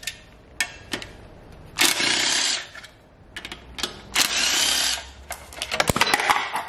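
Cordless power tool whirring in two short bursts about two seconds apart as it runs out the 8 mm heat-shield bolts on an engine's exhaust side. Light metal clicks and clinks follow near the end.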